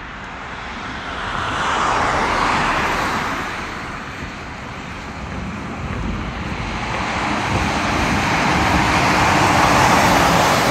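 Road traffic on a wet street: a rushing noise of tyres and engines that swells about two seconds in, eases off, then builds again to its loudest near the end as a semi-truck drives past.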